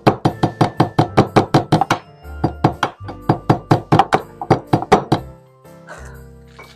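Rapid hammering of a nail with a heavy object used as a makeshift hammer: about five sharp blows a second in two runs with a short break near the middle, stopping about five seconds in. Background music plays underneath.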